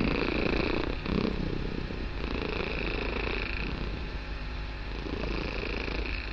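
Kitten purring very loudly and steadily, a continuous rough, low rumble.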